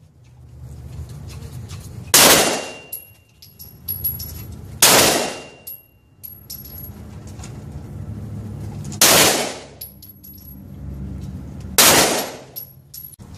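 Four shots from a Hi-Point 995TS 9mm carbine, fired a few seconds apart, each followed by a trailing echo. Light metallic clinks follow the shots.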